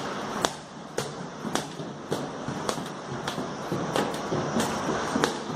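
Footsteps climbing polished stone stairs, a sharp step a little under twice a second, evenly paced.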